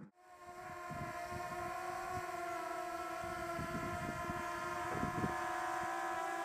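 Small quadcopter drone's propellers whining steadily: several even, slightly wavering tones held throughout, starting a fraction of a second in, with irregular low thumps underneath.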